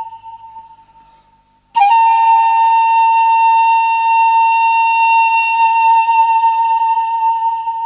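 Background music: a flute-like wind instrument holding long notes. One note fades away, then a new note starts sharply about two seconds in and is held steadily.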